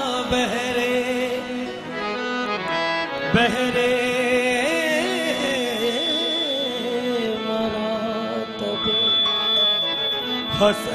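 Qawwali music: long, wavering sustained melodic lines over a steady drone, with a few sharp tabla strokes.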